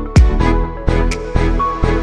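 Electronic background music with a steady kick drum beating about twice a second under sustained synth notes.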